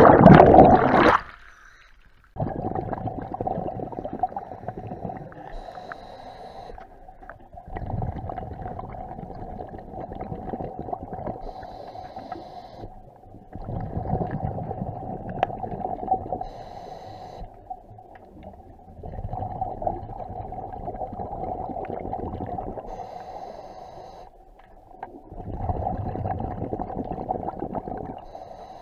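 Scuba regulator breathing heard underwater. A loud rush of bubbles opens it as the camera goes under. Then come slow breathing cycles: several seconds of bubbling exhalation, then a quieter spell with a thin hiss for each inhalation.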